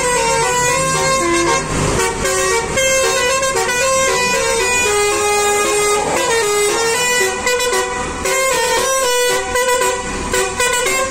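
Basuri multi-tone 'telolet' air horn on a Po. Haryanto bus playing a tune: held notes change pitch one after another without a break, over the low rumble of the bus.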